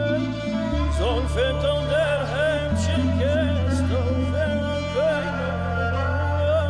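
Background music: a sung or instrumental melody with sliding notes over a sustained bass line that shifts every second or two.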